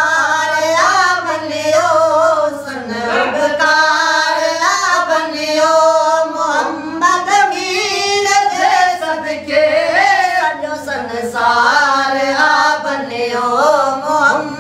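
Unaccompanied singing of a Sindhi naat: a boy's high voice leads in long, wavering held phrases, with two men singing along beneath him.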